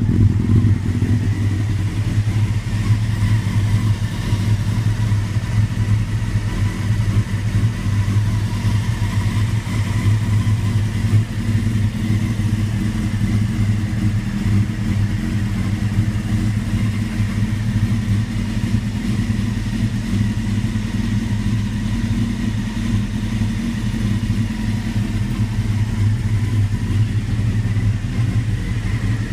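1996 Honda CBR600F3 motorcycle's inline-four engine idling roughly: a steady low note whose loudness wavers unevenly, the sign of a rough idle.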